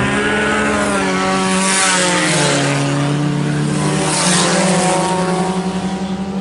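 Several sport compact race cars' four-cylinder engines running together at varying pitches, one dropping in pitch as the field slows under caution. There are louder surges of engine and tyre noise as cars pass about two and four seconds in.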